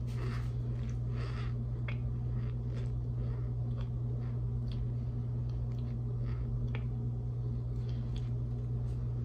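Chewing a mouthful of raw cornstarch: irregular soft crunching and squeaky clicks, close to the microphone. A steady low hum runs underneath and is the loudest sound.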